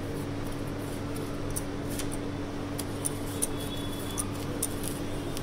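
Steady low electrical hum with faint, scattered soft ticks as warm cookie balls are rolled in icing sugar in a steel bowl.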